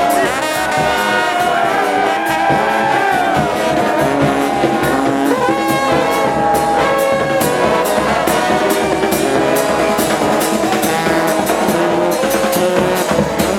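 Mummers brass band playing: trombones and trumpets carry a melody in held notes over a steady drum beat.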